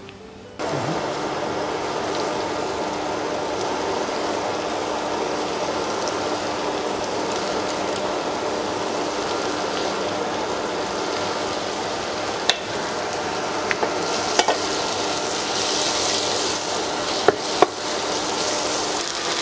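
Flour-dredged turkey strips sizzling as they fry with onion and garlic in ghee in a stainless steel frying pan, starting suddenly just after the start. A few sharp clicks near the end as the pieces are stirred with a wooden spatula.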